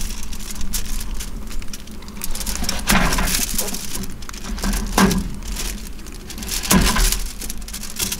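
Kitchen knife cutting a peeled potato into chunks on a foil-lined plastic cutting board: a run of small taps and foil crackling, with three louder knocks of the blade on the board about three, five and seven seconds in.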